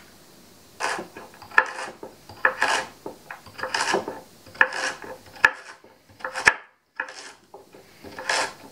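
Chef's knife slicing through raw carrots on a bamboo cutting board: a run of crunchy cuts about once a second, some ending in a sharp knock of the blade on the wood.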